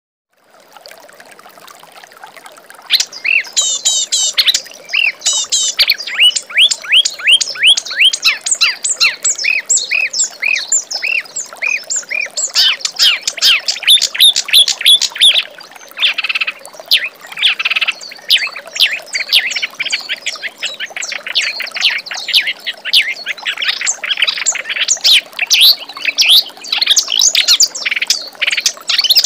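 Kerak basi, a reed warbler, singing a loud, varied song of rapid chirps and repeated sweeping notes, with runs of fast trills. It starts about three seconds in, after a faint opening.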